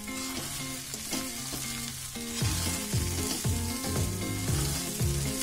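Poha (flattened rice) sizzling in an oiled pan as it is stirred and tossed with a metal spatula. Background music plays along, and about two and a half seconds in a beat of deep falling bass hits comes in, about two a second.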